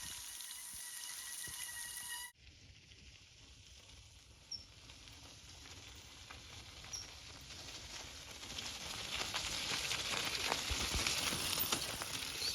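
Hail and rain pattering down: a steady hiss full of small ticks that changes abruptly about two seconds in, then grows louder over the last few seconds.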